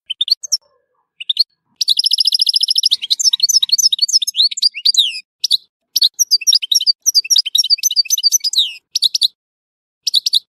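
European goldfinch singing: a few short call notes, then a fast buzzy trill about two seconds in, followed by rapid twittering phrases of varied, sliding notes broken by short pauses.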